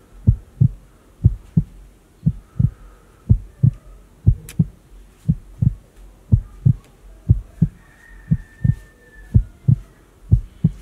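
Heartbeat sound effect: low double thumps (lub-dub), about one heartbeat a second, at an even pace.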